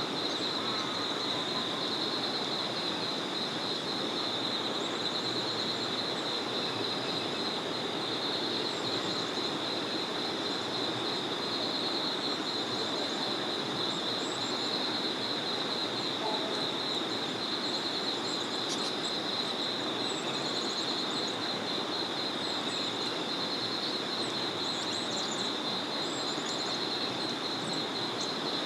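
A small forest river flowing steadily, under a continuous, rapidly pulsing high trill and a few faint, high bird chirps.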